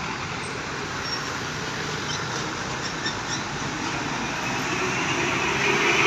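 Roadside traffic noise, with a vehicle drawing closer and getting louder near the end; no horn is sounded.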